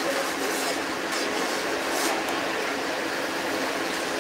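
Steady background din of a busy buffet restaurant, with a few faint clicks like dishes or utensils.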